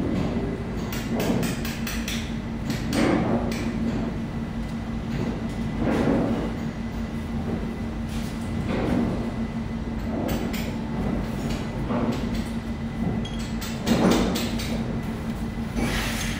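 A steel chisel struck with a carver's dummy (round-headed mallet), cutting into sandstone: separate blows at uneven intervals, a second or more apart, with lighter ticks between them.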